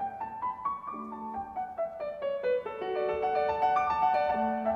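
Background piano music: a quick run of single notes moving up and down over lower held notes.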